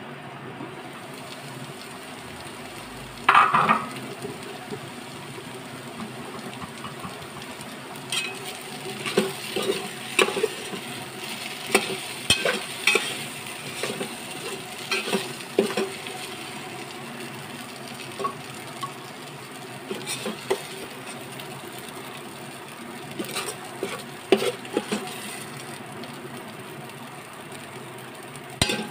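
Steel spoon stirring okra fry in a pot, with repeated scrapes and knocks against the metal over a steady frying sizzle. A single loud clatter comes about three seconds in.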